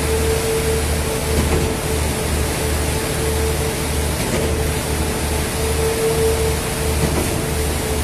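Diesel concrete pump running: a dense, steady machine noise with a low throb that comes and goes a little under twice a second, and a steady mid-pitched tone that breaks in and out.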